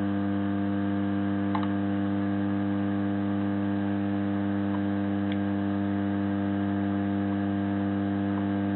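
Steady electrical hum with evenly stacked tones, from the hot-air soldering station running at maximum air while it melts plastic. A couple of faint ticks are heard over it.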